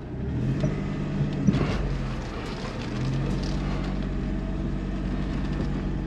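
Suzuki Kei Works' 660 cc three-cylinder turbo engine running steadily as the car rolls slowly, heard from inside the cabin. There is no groaning drivetrain rumble: the noise seems cured by the newly replaced viscous coupling.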